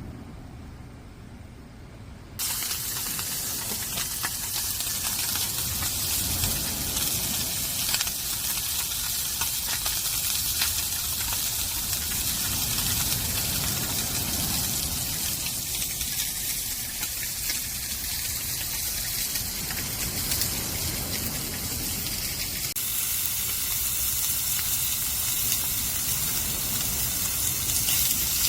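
Pork neck sizzling and crackling as it cooks. The sizzle comes in abruptly about two seconds in.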